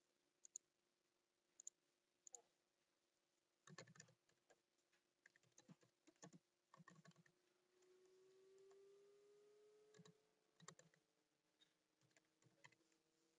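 Faint computer keyboard typing in short runs of keystrokes, after a few single mouse clicks in the first couple of seconds, over a faint steady hum.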